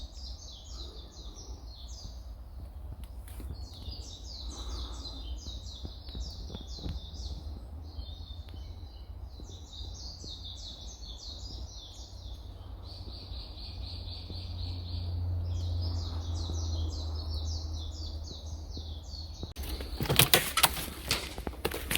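Birds chirping in quick, densely repeated high notes over a steady low rumble. About twenty seconds in, a burst of loud sharp knocks and rustles.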